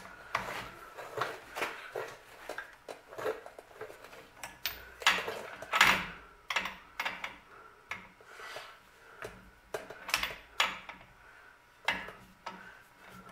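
Wrench working the bolts of a disc brake caliper: irregular metallic clicks and clinks of steel tool on steel, with the loudest clatter about six seconds in.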